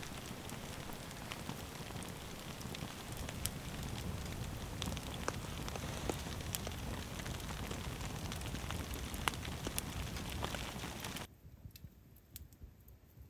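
Wood fire crackling in a folding steel fire pit, dense sharp pops over a steady hiss. About eleven seconds in it cuts to a much quieter sound with only a few faint crackles.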